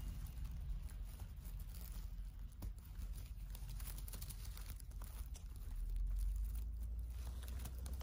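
Fingers pulling small mushrooms out of moss, with faint rustling and small crackles and snaps of moss and twigs. A low rumble runs underneath and grows louder about six seconds in.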